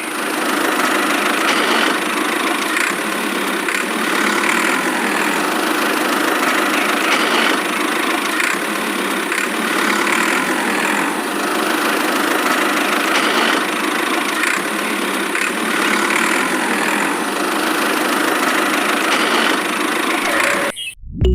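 Small motor of a DIY miniature machine running steadily, with a faint beat repeating about every second and a half; it cuts off suddenly near the end.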